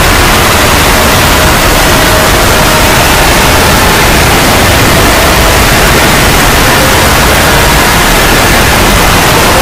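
Very loud, steady hiss like static: several cartoon soundtracks layered on top of each other and sped up until they blur into one wall of noise.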